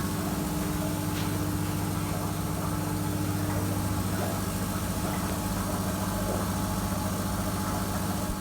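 Steady low mechanical hum of an engine or motor running at constant speed, with a couple of faint clicks.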